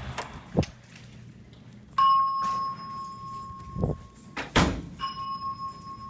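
Fire alarm voice-system speaker sounding a steady high electronic tone, twice, about two and a half seconds each with a short gap between, during speaker testing of a Simplex 4100U system. A few sharp knocks and thuds come in between.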